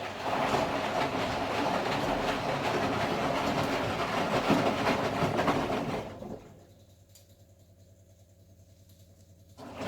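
Candy Formula Inox P 7.71X washing machine with its drum turning, a loud rattling run that stops about six seconds in. It goes quiet to a faint hum, and the drum starts turning again just before the end.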